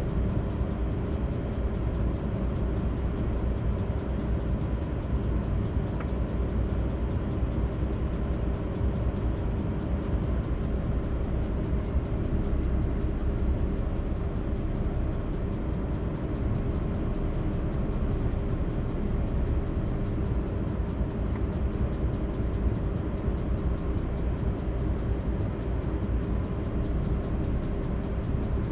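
Audi A8's 6.0-litre W12 engine idling steadily.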